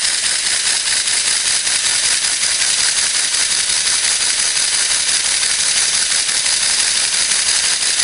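A 1:12 scale model Waller horizontal single-cylinder steam engine running fast on compressed air, giving a steady hiss of exhausting air.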